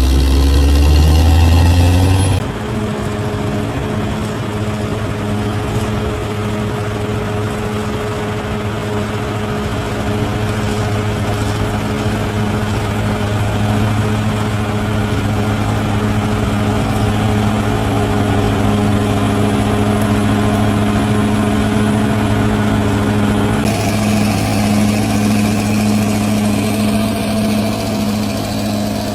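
Large bulldozer's diesel engine running steadily. In the first two seconds it is louder, with a rising pitch, then settles to an even tone.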